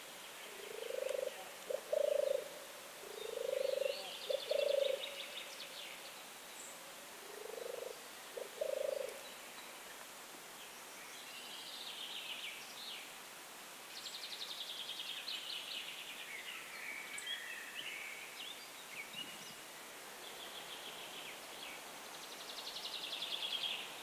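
European turtle dove purring its low, rolling 'turrr' song, several phrases of about a second each, mostly in pairs, over the first nine seconds. Small songbirds sing higher chirping phrases and trills throughout.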